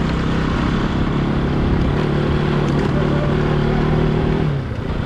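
Motorcycle engine running at steady revs while riding, over a steady rush of wind noise. The revs drop about four and a half seconds in.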